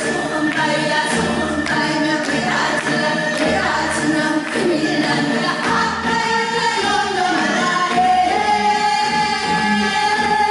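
Korean Gyeonggi folk song (minyo) sung by a small group of women together, voices holding long notes and sliding between pitches.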